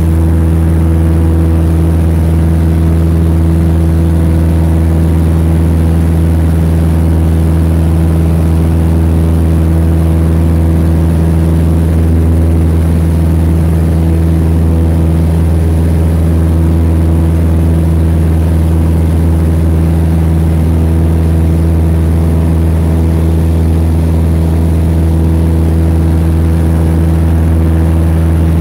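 Steady drone of a light single-engine propeller plane's engine and propeller in flight, heard from inside the cockpit, holding one even pitch and level throughout.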